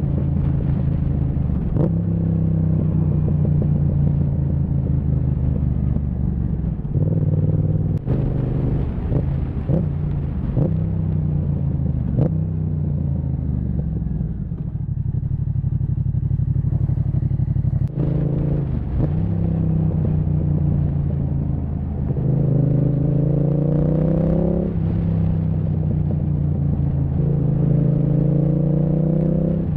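Yamaha MT-07's parallel-twin engine through a Zard aftermarket exhaust, pulling up through the revs several times and rolling off between pulls. Sharp pops and bangs from the exhaust come repeatedly, most of them in the first half. These are misfires that the owner puts down to the Zard exhaust.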